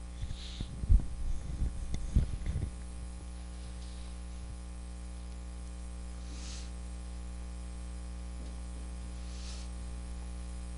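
Handheld microphone handling noise, a cluster of low knocks and thumps for the first couple of seconds, then a steady electrical mains hum from the microphone's sound system. Faint soft swishes of a blackboard eraser wiping the chalkboard come through twice in the second half.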